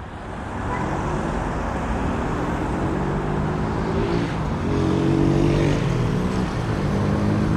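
Cars passing on a city avenue: a steady rush of tyre and engine noise, and from about three seconds in the hum of vehicle engines going by.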